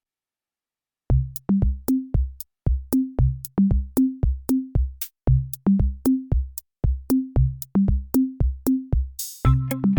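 Background electronic music: a drum-machine beat with deep kick drums starts about a second in, and fuller synth parts join near the end after a short cymbal-like swell.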